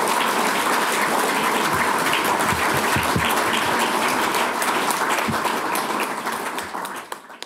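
Audience applauding: dense, steady clapping from many hands, fading away near the end.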